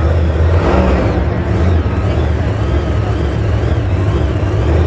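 Monster truck's supercharged V8 engine running loud at varying throttle as the truck balances on a dirt ramp.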